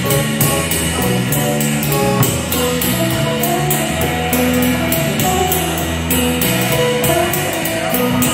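Small band playing a jazz tune: guitar over bass and drum kit, with an even cymbal beat of about three strokes a second.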